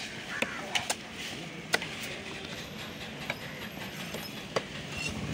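Several sharp knocks of a fish-cutting knife striking a wooden log chopping block as a fish is cut up, the loudest a little under two seconds in, over steady background market noise.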